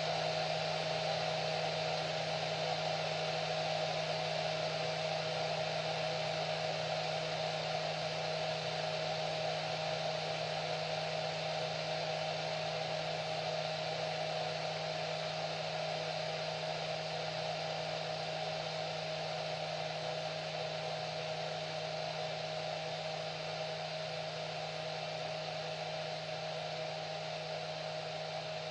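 Hair dryer running steadily: an even whirring blow with a constant hum, easing slightly quieter toward the end.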